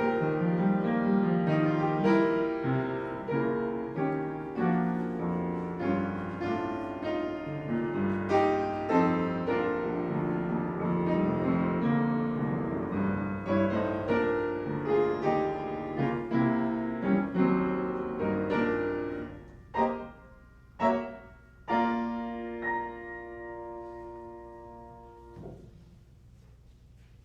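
Solo piano music, many struck notes in a flowing passage. It closes with two separate chords and a final held chord that rings and fades out.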